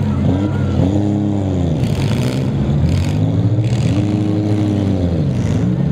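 Several six-cylinder demolition derby car engines running together, revving up and falling back again and again as the cars accelerate and back off, with a few short harsh noises over them.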